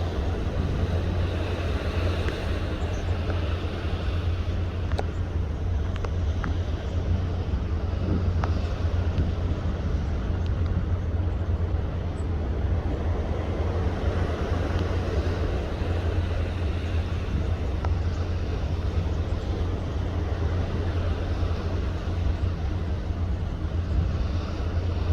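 Steady low rumble with a hiss on top, the unbroken noise of a ship under way at sea, with a few faint clicks.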